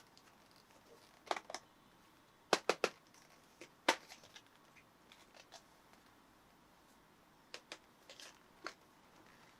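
Hands handling packaging and parts: sharp light clicks and taps in small clusters, the loudest a few seconds in, then a quiet stretch before a last few near the end.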